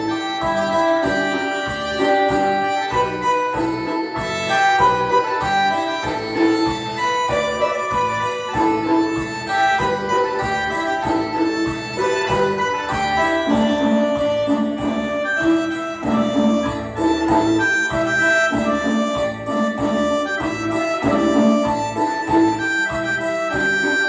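Instrumental Tày folk dance music: a reedy melody of held notes over a steady beat of jingling bells.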